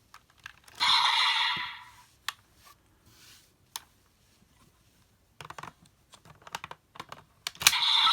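Plastic clicks and snaps of a DX Raise Buckle toy being handled and worked in the Desire Driver toy belt, with two short electronic sound-effect bursts from the belt's speaker: one about a second in, and one near the end that runs on.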